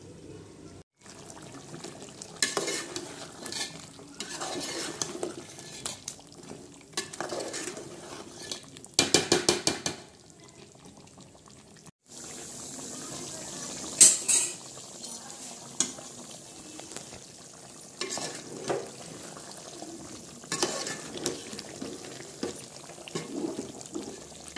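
Metal spoon stirring and scraping chicken and masala in an aluminium pot as they fry down (bhuna), with sizzling and clinks of metal on metal. A quick run of sharp taps comes around nine seconds in, and a single loud knock at about fourteen seconds.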